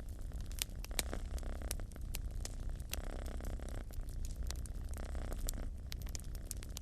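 Wood fire crackling with many sharp pops, over a cat's purr, a low rumble that swells and fades with each breath.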